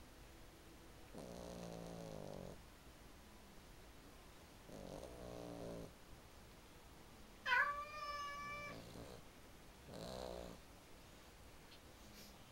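Himalayan cat snoring in its sleep: three low rasping snores a few seconds apart. A brief high-pitched cry midway is the loudest sound.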